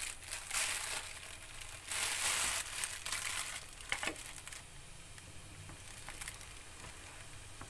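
Rustling and crinkling handling noise in three bursts over the first few seconds, a sharp click about four seconds in, then a faint steady hiss.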